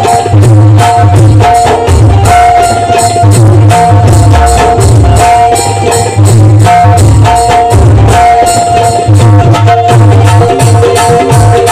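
Loud instrumental music: a steady low drum beat under a short melodic phrase repeated over and over, with rattling shaker-like percussion throughout.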